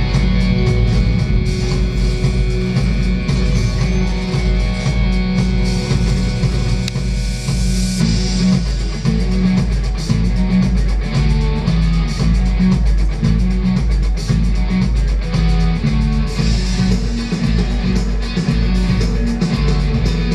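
Loud rock music with guitar, bass and drums over a steady, driving beat, played over a sound system as the soundtrack of a vehicle reveal.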